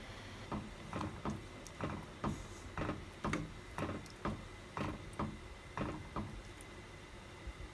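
A ladle stirring thick chicken rice porridge in a pot: a run of soft scrapes and knocks, about two a second, that stops about six seconds in.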